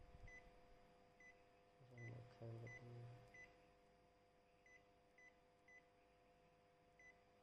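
Epson EcoTank printer's touchscreen control panel giving short, high key beeps, about nine spaced unevenly, one for each touch as the list is scrolled. A brief low hum about two seconds in.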